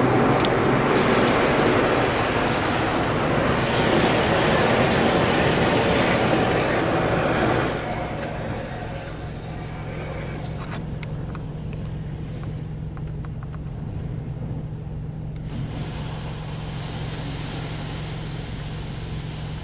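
Karcher Opti Wash 8000 automatic car wash gantry working over the car, heard from inside the cabin: a loud spray hiss that drops off sharply about eight seconds in, leaving a quieter steady hiss over a constant low hum.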